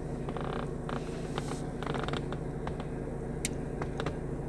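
Scattered light clicks and creaks in a car cabin, a few a second and irregular, over a steady low hum.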